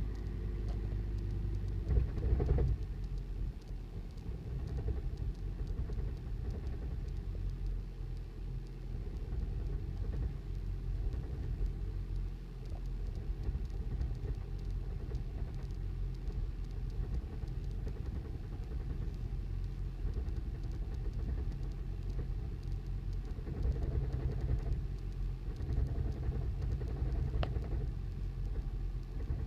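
2008 Toyota Prius's 1.5-litre four-cylinder petrol engine running rough after a start, with an awful, uneven knocking rumble that shakes the whole car. The cause was failed spark plugs. A single sharp click sounds near the end.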